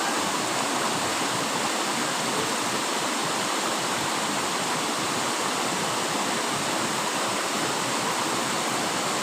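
Steady rush of a waterfall pouring over rocks into a pool, a constant even roar of falling water.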